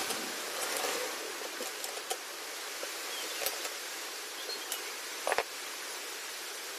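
Light metallic clicks and taps as a spark plug is turned in with a T-handle wrench and its cap is handled on a brush cutter engine, the sharpest a quick double click about five seconds in, over a steady hiss.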